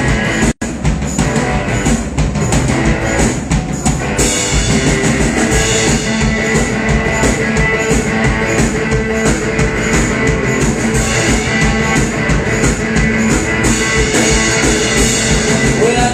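Live rock band playing an instrumental intro, electric guitar over a steady drum-kit beat and bass, before the vocals come in.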